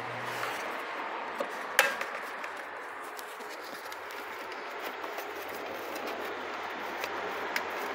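Faint handling of plastic parts and wiring in a car's engine bay, with one sharp click a little under two seconds in and a few fainter clicks over a steady background hiss.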